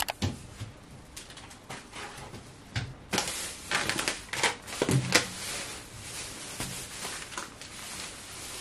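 Handling noise: irregular sharp clicks and knocks, with a rustling hiss from about three seconds in.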